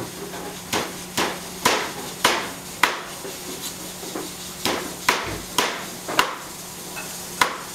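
Chinese cleaver chopping raw chicken on a round wooden chopping block: about ten sharp, uneven strikes, with a short pause about halfway through.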